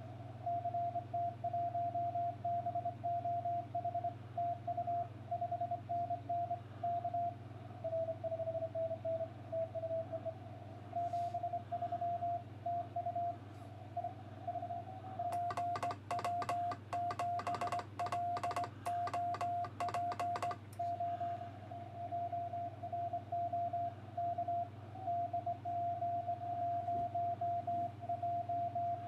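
Morse code (CW) tones from an amateur radio transceiver: a single tone near 700 Hz keyed on and off in dits and dahs, over a steady low hum. From about fifteen to twenty-one seconds in, the keying turns louder and sharply clicky, as the operator calls the station through the pileup.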